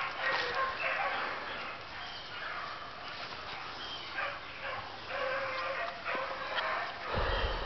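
Several hunting dogs baying and yipping in repeated calls as they run a cottontail rabbit. A brief low rumble near the end.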